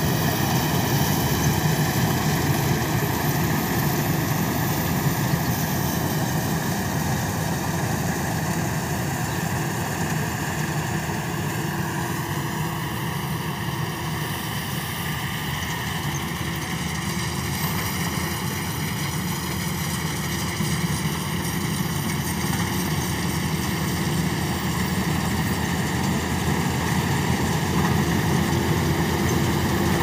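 FMWorld Ruilong rice combine harvester running as it cuts paddy, a steady engine drone. It is quieter in the middle and louder again near the end.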